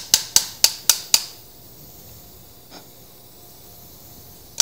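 Steel surgical mallet striking the handle of a femoral broach in quick, evenly spaced metallic blows, about four a second, driving the broach down the femoral canal during hip replacement. The hammering stops a little over a second in.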